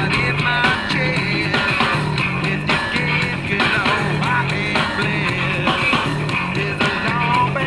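A rock song with singing and guitar playing from a radio fitted to a motorcycle, with a steady repeating bass line.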